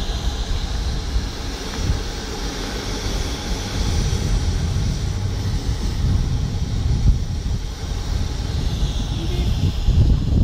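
Mount Lyell steam locomotive standing in steam, giving a steady hiss over a low, uneven rumble.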